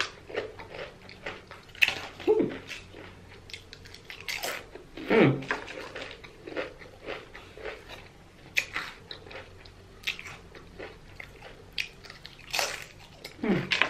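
Close-miked chewing and biting of a Subway sandwich: irregular wet mouth clicks and smacks, with a few louder bites spread through.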